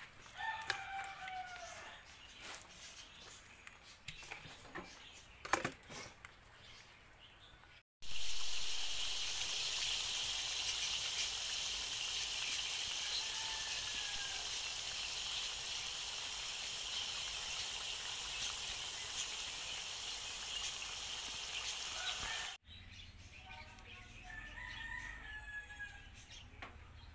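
A rooster crowing, once about a second in and again near the end. Between those crows a loud, steady hiss with faint crackles starts and stops abruptly, lasting about fifteen seconds.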